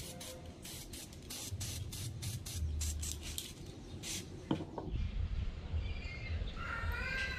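Aerosol spray paint can hissing in short bursts through the first four seconds or so. After that comes a quieter outdoor stretch, with a bird calling near the end.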